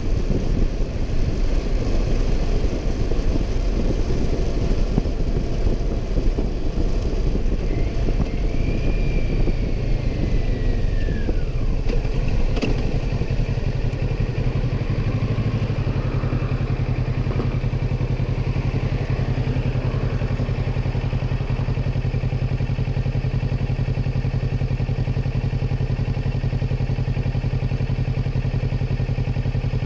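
Motorcycle engine running under way with wind noise, then settling into a steady idle about halfway through as the bike stops. A brief high tone falls in pitch about a third of the way in.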